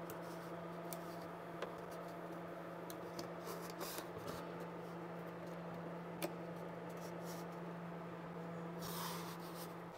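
Faint handling sounds of fingers pressing and rubbing LED tape light and its wire into an aluminium extrusion, with a few small clicks, over a steady low hum.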